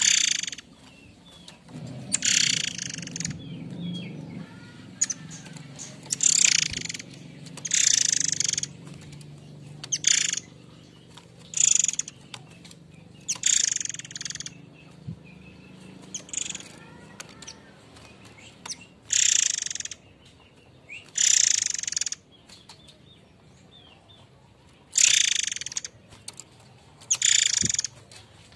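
Forktail (murai air mancur) giving its harsh, rasping call over and over: short hissing screeches, each under a second long, repeated about every two seconds.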